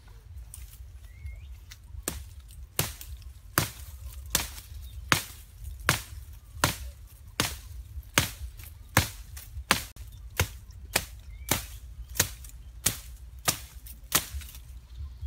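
Hatchet chopping into a thin sapling's stem. From about two seconds in, the sharp blows come in a steady rhythm of about three every two seconds.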